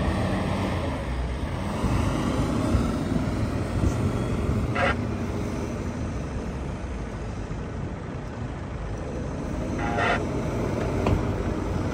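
Ford Endeavour 3.2 diesel SUV's engine running hard under load as the stuck vehicle tries to drive out of soft dune sand, its wheels spinning and throwing sand.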